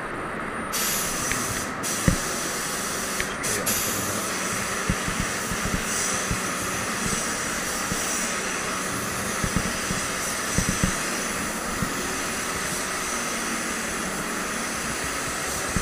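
Gravity-fed spray gun spraying top coat: a steady hiss of compressed air and atomised paint that starts about a second in and keeps going, with a few soft knocks along the way.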